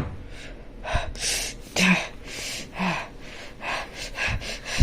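A child's short, breathy vocal sounds: a string of gasps and huffs.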